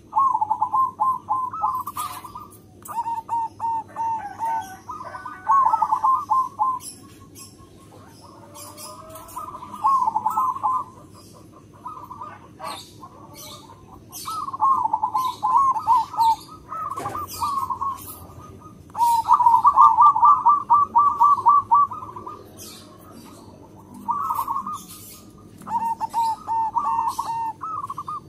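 Zebra dove (perkutut) singing its rapid, staccato cooing song: about eight trilled phrases of a second or two each, with short pauses between them.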